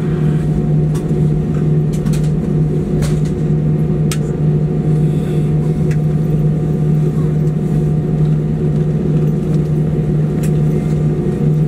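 Steady cabin drone inside an Airbus A320 taxiing at low speed with its jet engines at idle, a constant low hum under an even rush of air noise.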